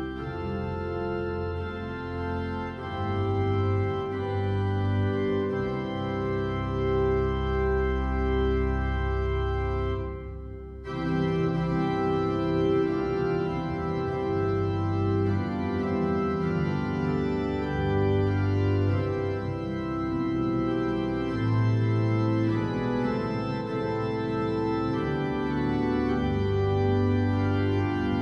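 Church organ playing slow, sustained chords that change every second or two, with a brief break between phrases about ten seconds in.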